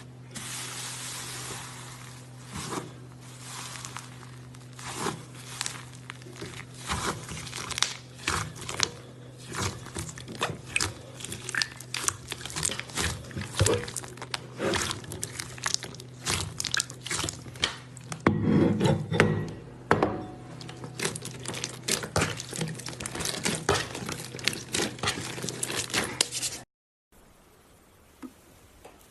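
Slime being squeezed and stretched by hand, making dense irregular sticky clicks and pops, with a louder squelching stretch about two-thirds of the way through. A steady low hum runs underneath, and the sound cuts off abruptly near the end.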